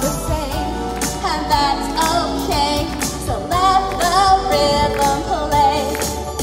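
A woman singing a pop song live into a microphone over a backing track, heard through outdoor PA speakers.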